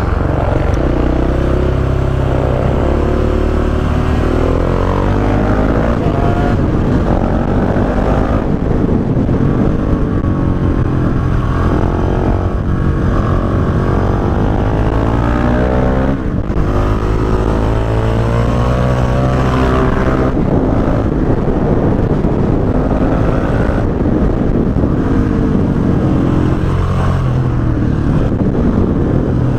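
KTM 690 SMC-R's single-cylinder engine running loud through an Akrapovic exhaust with the dB killer removed, its pitch repeatedly rising and dropping as the throttle is opened and closed.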